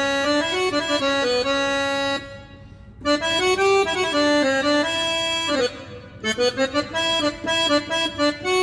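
Yamaha PSR-A5000 keyboard playing its Tango Accordion Bass voice: accordion chords held in phrases, with short breaks about two and six seconds in. The last phrase is played in short, rhythmic notes.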